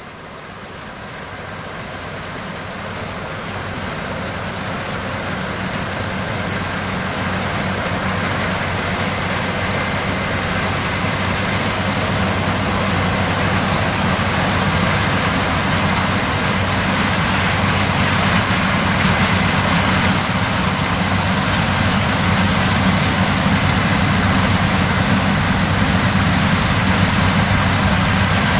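John Deere X9 1100 combine running while harvesting corn: a steady engine and machinery drone with a low hum. It grows louder over the first several seconds and then holds steady.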